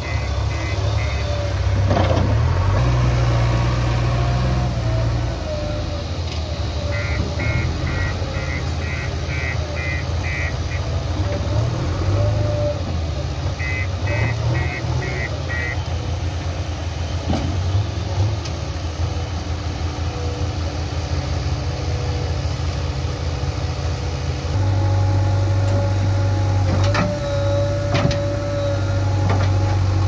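JCB 3DX backhoe loader's diesel engine running and working its hydraulics, labouring harder near the start and again for the last few seconds as the backhoe arm lifts and tips its load. Short runs of evenly spaced high beeps from a reversing alarm cut in three times, and a few knocks come near the end.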